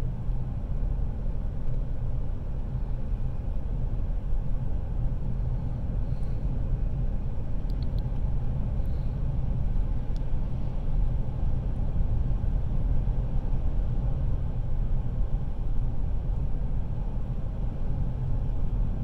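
Steady low rumble of road and engine noise from a moving pickup truck, heard from inside the cab.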